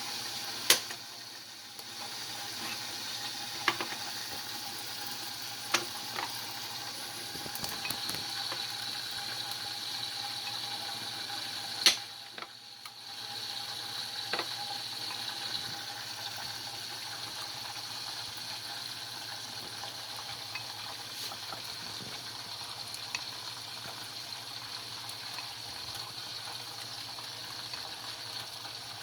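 Turkey wings deep-frying in hot oil on high heat: a steady bubbling sizzle with a few sharp pops, and a louder knock about twelve seconds in.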